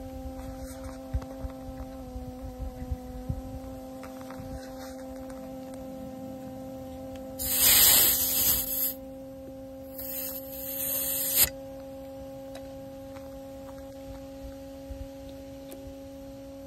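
Air hissing from a tyre's valve stem in two short bursts, about seven and ten seconds in, as a dial pressure gauge is pressed onto it. A steady hum runs underneath, with a few faint clicks near the start.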